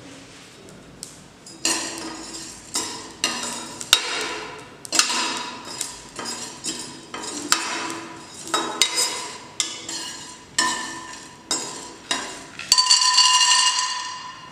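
A spoon stirring and scraping whole spices (coriander seeds, cardamom, cloves, peppercorns) as they dry-roast in a metal pot, in strokes about once a second, the pot ringing a little with each stroke. Near the end, a louder, steadier rattle as raw peanuts are poured into the pot.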